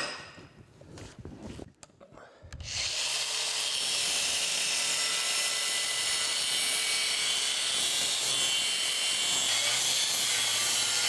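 A sharp metal clank right at the start, then about three seconds in an angle grinder with a cutoff wheel starts and runs steadily, cutting the riser and gate off a cast iron casting clamped in a bench vise.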